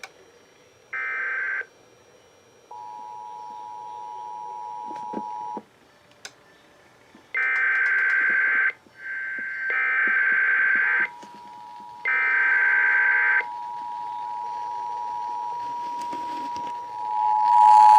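Emergency Alert System test over FM radio: SAME digital header bursts, a harsh screech sent three times in a row, together with the steady two-tone EAS attention signal (853 and 960 Hz). A single header burst comes about a second in, and a short stretch of the attention tone follows. The attention tone comes back after the three bursts and grows louder near the end.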